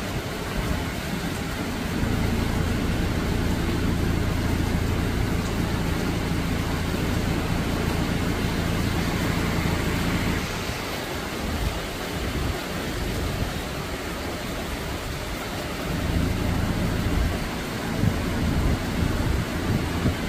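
Steady rain falling on the leaves and surroundings, a continuous hiss. Under it, a low steady engine hum runs from about two to ten seconds in, fades, and comes back briefly later on.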